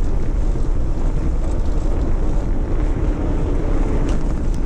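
Bicycle rolling over cobblestones, its tyres and frame rumbling and rattling steadily, with wind buffeting the camera microphone.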